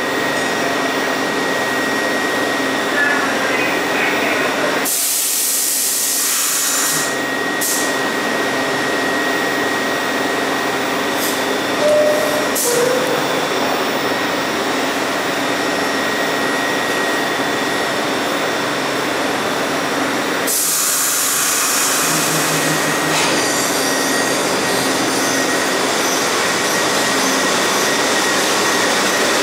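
Bombardier R62A subway train standing at the platform, its onboard equipment running with a steady hum and a thin high whine. Two bursts of hiss come through, about five seconds in and again about twenty seconds in.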